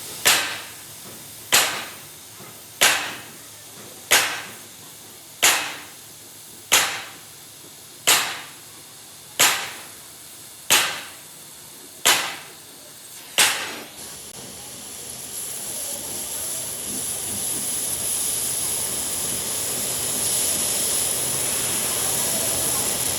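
Hammer blows on metal, eleven in a row at an even pace of about one every 1.3 seconds, each ringing briefly. The blows stop shortly after halfway through, and a steady high hiss builds up and runs on.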